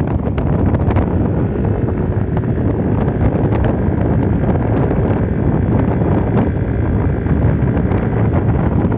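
Wind buffeting the microphone on a moving Yamaha Aerox V2 scooter, with the scooter's engine and freshly cleaned CVT running steadily under it.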